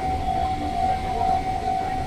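Japanese level-crossing warning alarm sounding: one steady high electronic tone that swells and dips slightly, over a low rumble.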